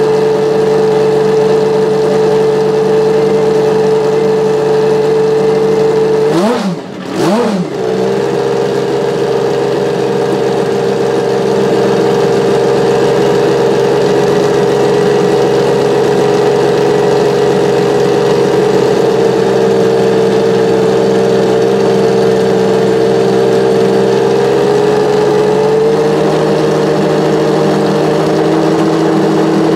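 Ferrari 333 SP's 4.0-litre V12 running steadily at a raised idle while warming up. About six seconds in the revs dip twice, briefly and quickly, and recover. Near the end the pitch steps down a little.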